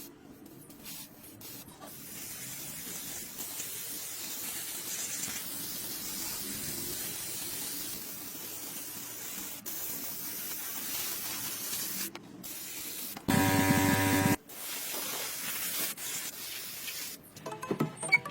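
A steady spraying hiss runs through most of the stretch, broken about two-thirds of the way in by a loud, roughly one-second buzzing tone. Musical notes come in near the end.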